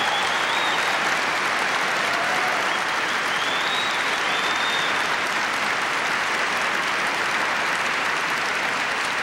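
Large conference audience applauding steadily, the dense clapping of a packed auditorium.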